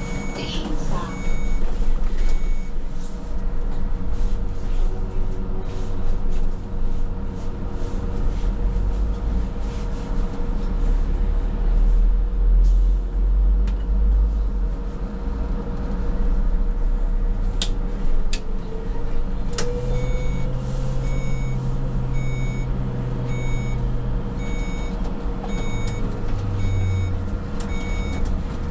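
Škoda 27Tr trolleybus driving: low rumble of the ride with a steady electric motor whine that glides up in pitch about twenty seconds in. A repeating electronic beep sounds near the start and again through the last several seconds.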